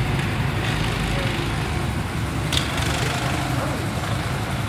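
Go-kart engines running out on the track, a steady low drone, with one brief sharp click about two and a half seconds in.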